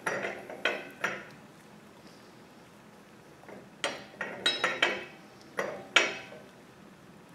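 Sharp metallic clinks and light knocks of steel parts (the spindle, its hub flange and the parts in the gloved hands) touching as the bearing seat is greased: a few in the first second, then a quick cluster from about four to six seconds in.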